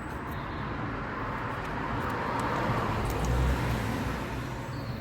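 A road vehicle passing by, its rumble and tyre noise growing louder to a peak about three seconds in and then fading.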